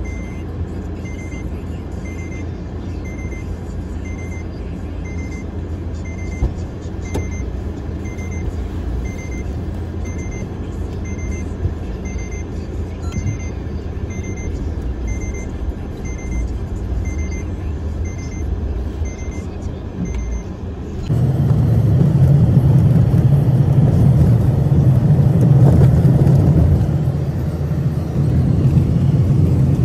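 Car engine idling with a car's warning chime beeping steadily, about one and a half beeps a second. About two-thirds of the way through the chime stops abruptly and the car moves off, its engine and road noise much louder and lower.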